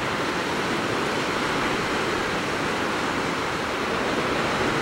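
Ocean surf breaking on rocks, heard as a steady, even wash with no single wave standing out.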